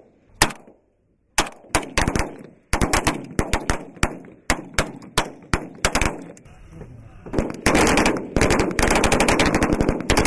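Small-arms gunfire from soldiers' live-fire target practice. Separate shots and short bursts come first, then sustained rapid automatic fire from about seven seconds in.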